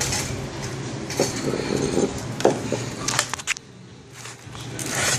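Metal exhaust pipe and clamp parts clinking and knocking as they are handled, a few sharp clinks in the first half, over a steady low hum.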